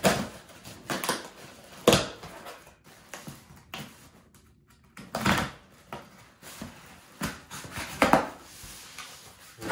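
Packing tape on a cardboard box being slit with scissors and ripped off, and the cardboard flaps pulled open: a handful of short, sharp rips and scrapes, the loudest about two seconds in, with a quiet gap in the middle.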